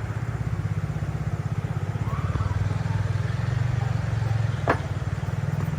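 A motor-vehicle engine running steadily with a rapid low throb, and two sharp clicks near the end.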